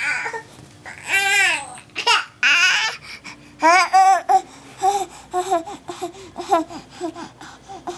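An eight-month-old baby babbling and squealing: two long, wavering high-pitched squeals in the first half, then a run of short repeated syllables, about three a second.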